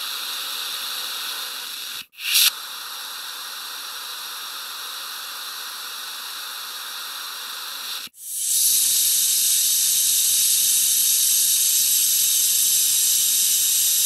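Compressed air escaping in a steady hiss. About two seconds in it breaks off for a short, sharper burst, then runs on evenly. A little after eight seconds it cuts out and comes back as a louder, brighter hiss.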